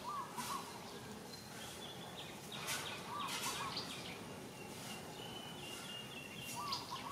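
Outdoor forest ambience: a short chirping call is repeated three times, about three seconds apart, over steady background noise. Brief faint rustles come through as well.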